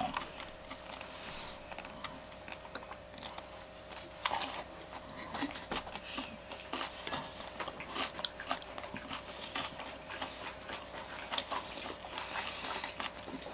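Mouth sounds of eating close to the microphone: chewing and biting, with many small irregular clicks and crunches and a louder one about four seconds in. A faint steady hum sits underneath.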